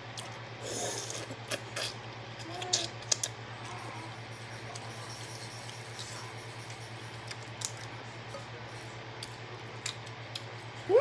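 Eating a seafood boil: scattered light clicks and clinks of utensils and shells, clustered in the first few seconds, over a steady low hum. A dog's short rising whimper comes right at the end.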